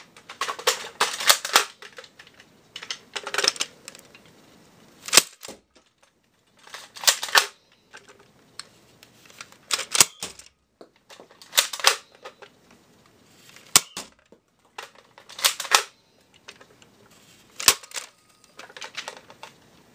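Nerf Maverick spring-powered dart blaster being repeatedly primed and fired: clattery clicks of the priming slide and turning cylinder, each followed a second or two later by a single sharp snap of a shot, about four shots in all, roughly every four seconds.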